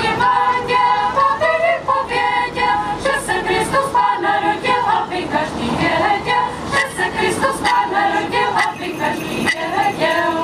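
Choir of women's and men's voices singing in harmony, a cappella; the singing stops at the very end.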